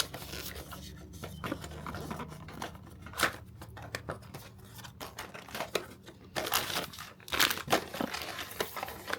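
Packaging being opened by hand: irregular rustling, crinkling and tearing of wrapping with small clicks and taps, busiest and loudest in the last few seconds.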